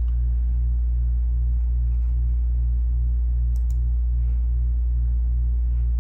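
A steady low electrical hum with a throb about three times a second. A couple of faint light clicks come about halfway through.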